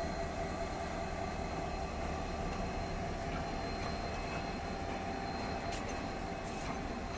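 TCDD DE 33078 diesel locomotive running steadily during a slow reverse shunting move: an even engine drone with a steady whine over it.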